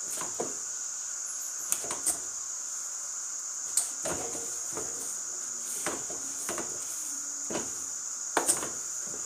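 A wooden cooking stick knocking and scraping against an aluminium sufuria as thick, nearly cooked ugali is stirred and pressed, about ten separate knocks with two close together near the end, over a steady high hiss.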